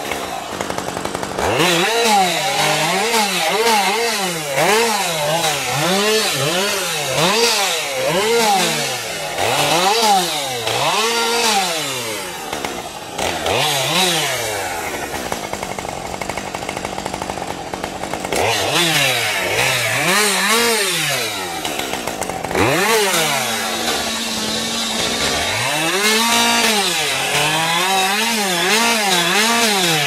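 Husqvarna 550 XP Mark II two-stroke chainsaw revved up and down again and again, roughly once a second, while cutting branches off a felled tree, with a couple of steadier stretches in between.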